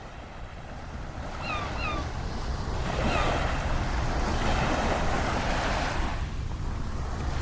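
Ocean surf washing onto a beach, building up over the first few seconds and swelling about three seconds in, with a low wind rumble on the microphone. Two short chirps sound about a second and a half in.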